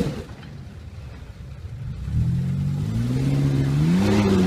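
Off-road 4x4 engine revving: after a lull of low rumble, the engine picks up about two seconds in and its pitch climbs steadily under throttle.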